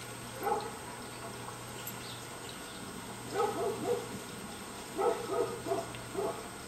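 A small pet giving short high-pitched yips in quick runs: one about half a second in, three together around the middle, and four more in the last two seconds.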